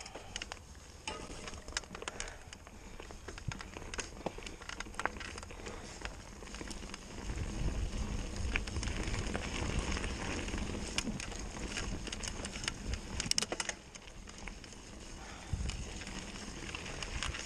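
Mountain bike ridden fast down a dirt trail: tyres crunching over packed dirt and the bike rattling with many small clicks, under a low rush of air that swells through the middle.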